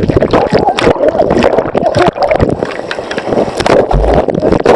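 Churning surf around a camera tumbling in the water: rushing, bubbling whitewater with crackling splashes, and two low thumps near the end.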